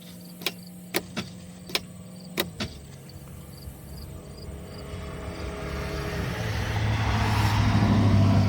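Ignition key switch on a Massimo T-Boss 550 UTV clicking sharply about six times in quick pairs in the first few seconds, as the key is cycled on and off three times to call up a fault code for a crank-no-start. After that a low hum and a broad noise swell over several seconds and are loudest near the end.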